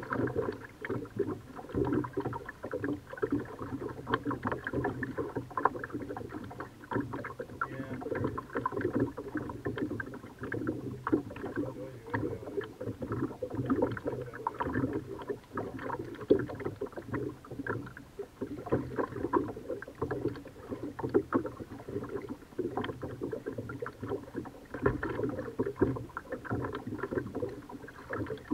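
Kayak paddling: water splashing and dripping off the paddle blades in a continuous, irregular patter of small splashes.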